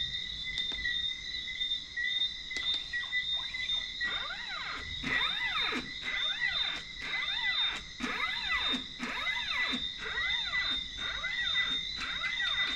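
Stepper motors driving a photometric stereo rig's gantry through a run of short moves from about four seconds in, each move a whine that rises and then falls in pitch, about one a second. Under it, crickets chirp steadily.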